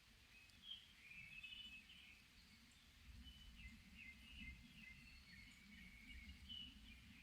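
Faint songbirds singing in a forest: many short chirps and warbled phrases overlapping, over a low rumble.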